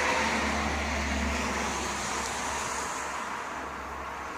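A car driving past on a road, loudest at first and slowly fading as it moves away.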